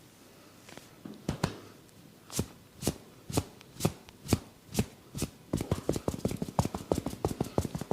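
Percussive head massage: sharp single strikes about two a second, then from about five and a half seconds in a fast, even patter of quick strikes.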